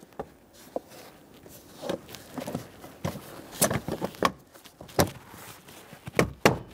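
Plastic lower dash panel being swung up and pushed into its mounting clips: a series of light plastic knocks and clicks with handling rustle, the louder knocks near the end.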